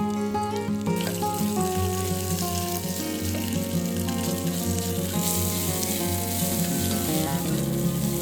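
Food sizzling in hot oil in a pot, starting about a second in, over background music.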